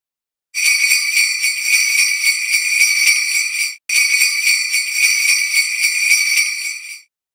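Jingle bells shaken steadily in a bright, dense jingle for about three seconds. They break off for an instant, then ring on for about three seconds more and stop.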